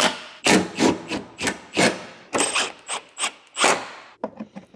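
Cordless ratchet run in quick short bursts, about three a second, driving a headlight's mounting bolts home; the bursts stop about four seconds in.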